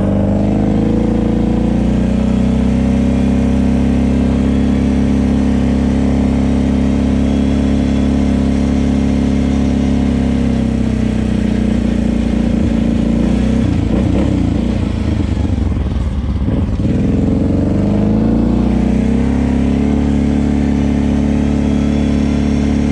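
Kawasaki KFX 700 ATV's V-twin engine running under light throttle at parking-lot speed, heard from the rider's seat. It rises in pitch in the first couple of seconds and eases off about ten seconds in. It sounds rougher for a few seconds after that, then picks up again.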